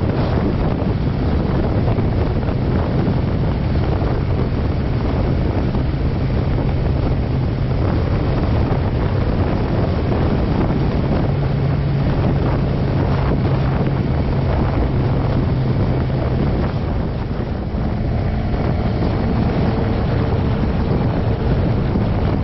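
Motorcycle engine running under heavy wind rush on the helmet or bike-mounted microphone. The steady engine note drops away about three quarters of the way through, leaving mostly wind.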